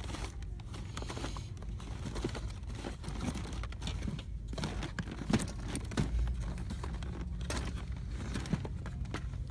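Rustling and clicking of boxed toys being handled and shuffled on a shelf, over a steady low hum.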